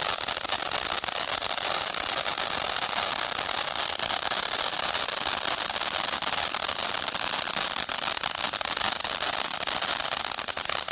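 A ground firework giving off a dense, steady crackling over a hiss, which cuts off suddenly just after the end.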